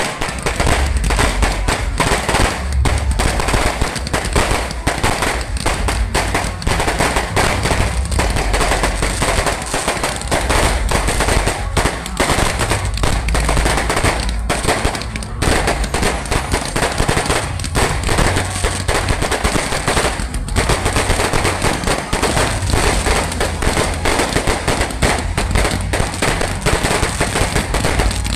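A fireworks display going off in rapid, nearly continuous volleys of bangs and crackles over a deep rumble, with only brief letups about halfway through.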